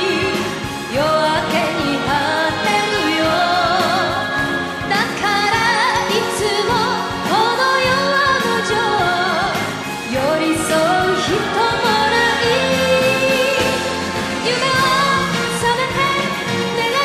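A Japanese enka song: a woman singing with a wavering, vibrato-laden melody over full instrumental backing.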